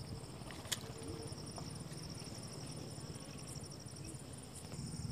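Insects trilling steadily in two high, finely pulsed tones, with one sharp click about a second in and a low rumble beneath.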